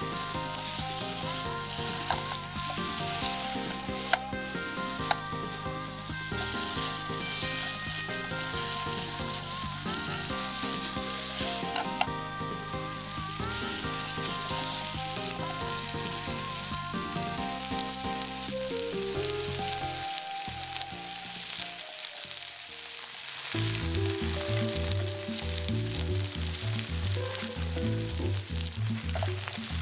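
Meat and vegetables sizzling as they are stir-fried in oil, with a few sharp clicks of a utensil against the pan, over background music.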